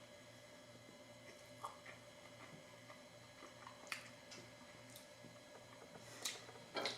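Near silence with faint, scattered soft clicks and mouth noises from someone quietly chewing a grilled sandwich, over a low steady hum.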